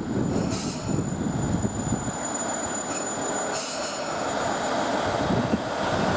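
KiHa 110 diesel railcar running past on the rails with a low rumble, and a thin steady wheel squeal that sounds for about four seconds before fading out.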